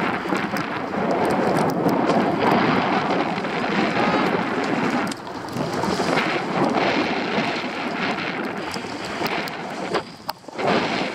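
Skis sliding and scraping over packed snow during a downhill run, with wind rushing over the microphone; the noise dips briefly near the end.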